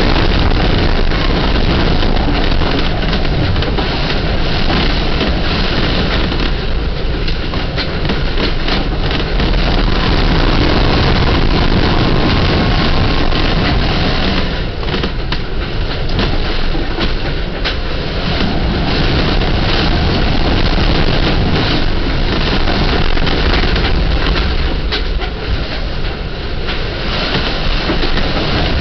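Hurricane wind blowing hard and without pause against a sailboat's hull, heard from inside the cabin, with many small rattles and knocks throughout. The gusts ease briefly a few times, then build again.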